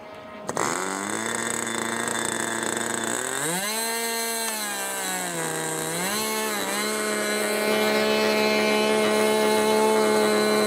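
O.S. .46 glow engine of a radio-controlled model airplane running at high revs in flight. It starts abruptly about half a second in, its pitch rises, falls and rises again over a few seconds, then holds a steady high note that grows louder near the end.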